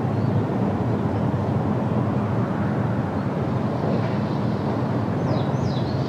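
Steady low rumbling noise with no change in level, and two short high chirps falling in pitch near the end.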